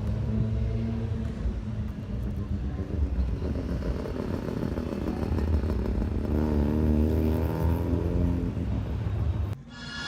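Drift car engines running and revving on track, with a rev that climbs in the second half. The sound cuts off suddenly near the end and music begins.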